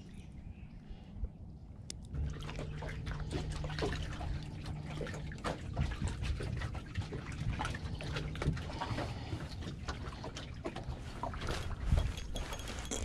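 Small waves lapping and trickling against a boat hull, with many small splashes and ticks. A steady low hum runs under it from about two seconds in until about eight seconds in.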